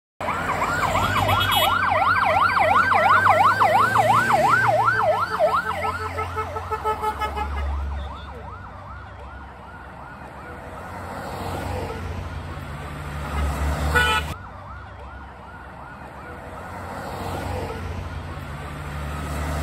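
Vehicle siren wailing rapidly up and down, about three sweeps a second, loud for the first six seconds or so, then fainter and returning as it moves along, over the low running of car engines on the road.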